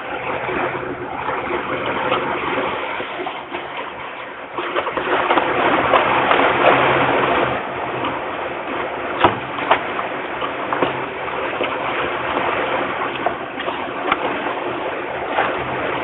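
Young peregrine falcons flapping their wings and shuffling in a nest box, a rushing rustle that grows louder for about three seconds around five seconds in. A couple of sharp ticks come around nine seconds in.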